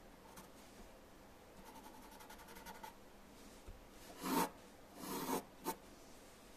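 Graphite pencil scratching on paper: a run of quick, light hatching strokes, then two longer, louder strokes and a short one in the last two seconds.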